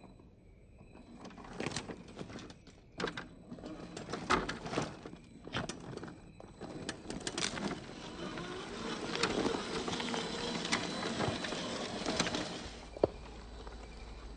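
RC4WD Trail Finder 2 scale crawler driving over rock and loose gravel: tyres and chassis knock and click irregularly on the stone, then the whir of its 550 16-turn motor and drivetrain runs steadily with gravel crunching until it stops suddenly near the end, followed by one sharp click.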